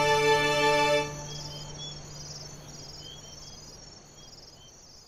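A held chord of background music cuts off about a second in, leaving field crickets chirping in quick, even pulses with a few separate short chirps, the whole sound fading out steadily.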